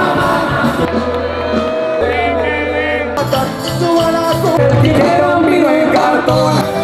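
Music: a song with a singing voice over a sustained bass line, with light jingling percussion.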